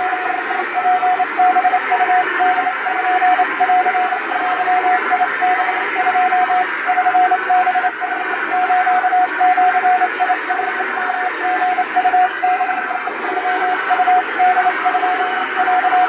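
Japanese (wabun) Morse code sent fast on an electronic keyer: a single steady beep keyed on and off in quick dots and dashes over a constant hiss.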